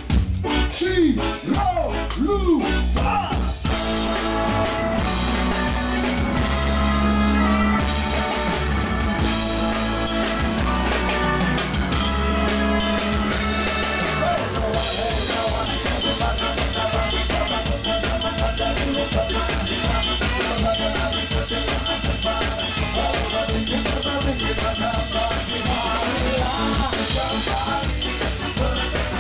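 Ska band playing live: drum kit, bass, guitar, keyboard, saxophone and trombone. A few sliding notes at the start give way to the full band, with a steady, driving drum beat through the second half.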